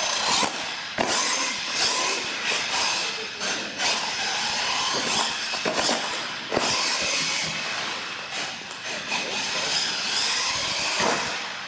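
R/C monster truck's electric motors and gearboxes whining as it drives hard on a concrete floor, with the tyres scrubbing. There are several sharp knocks, the clearest about six and a half seconds in as the truck lands a ramp jump.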